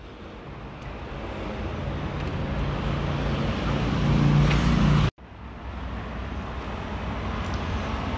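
Road traffic noise, heard as two edited clips that each fade in. A low hum swells to the loudest point about four to five seconds in, then cuts off suddenly.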